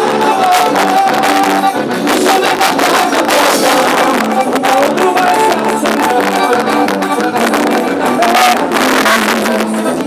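Loud music with a steady beat and held melody notes over it, festival music for a São João quadrilha dance.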